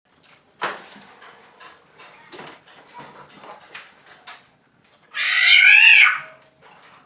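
Male black-naped oriole giving one loud, harsh, wavering call lasting about a second, about five seconds in, after a few seconds of soft clicks and short notes.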